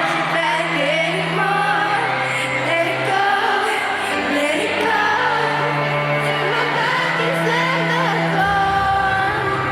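Pop song with singing: a wavering vocal melody over long held low bass notes.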